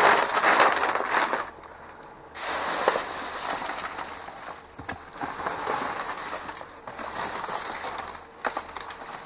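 Trash being rummaged through in a dumpster: crackling, rustling handling of bags and discarded items, loudest in the first second and a half, then after a brief lull steadier rustling with scattered clicks and knocks.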